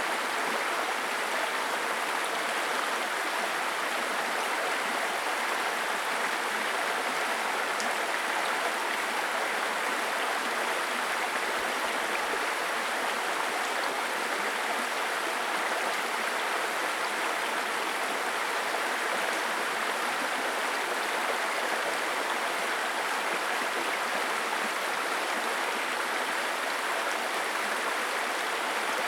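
Small brook babbling over stones: steady, unbroken rush and trickle of running water.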